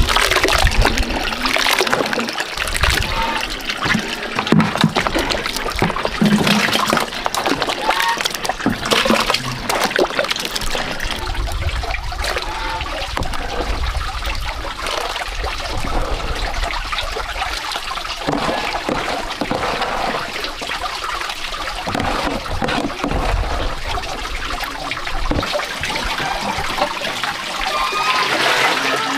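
Water running steadily from a pipe spout into plastic buckets, with splashing as a mixture is worked by hand in a plastic basin.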